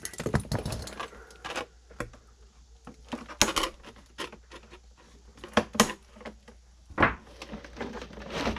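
Irregular clicks, taps and rustling of packaging being handled while an RC car is unboxed, with a few sharper knocks in the middle and near the end.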